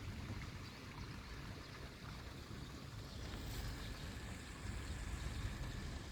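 Steady low outdoor rumble with a faint hiss above it; no crossing warning bell is sounding.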